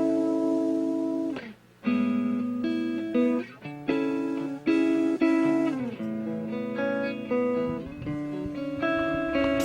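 Instrumental guitar intro: chords strummed and left to ring, changing every second or so, with a brief break about a second and a half in.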